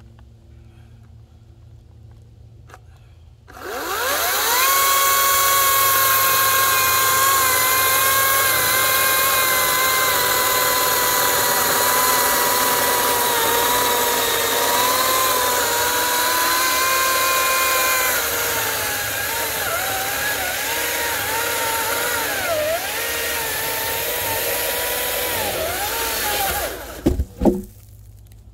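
Battery-powered chainsaw spinning up about three and a half seconds in and cutting across a fallen log with a steady high whine that dips a little under load. It stops abruptly near the end, followed by a few sharp knocks as the cut-off plank drops.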